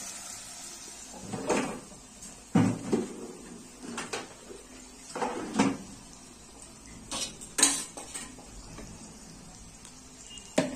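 A spatula scraping and knocking against a cooking pan in short, irregular clatters, about six or seven of them, as a spiced onion-tomato masala with chilli, turmeric and coriander powder is stirred and fried in oil.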